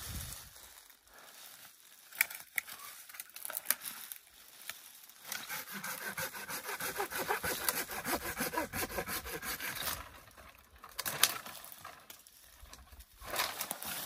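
A hand saw cutting through a pine branch with rapid back-and-forth strokes for about four seconds in the middle, with scattered cracks and the rustle of branches before and after.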